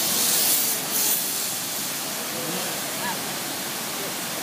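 Large waterfall rushing steadily. In about the first second, a zip-line trolley runs past on the steel cable with a brief, high whirring hiss.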